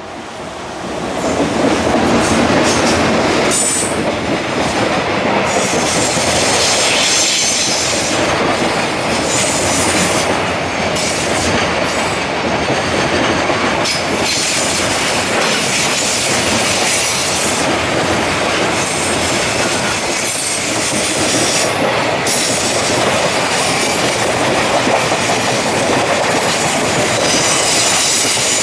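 A freight train of Koki 100-series container wagons hauled by an EF210 electric locomotive rolls past close by. It makes a loud, steady rumble and clatter of wheels on rails that swells over the first couple of seconds and then holds.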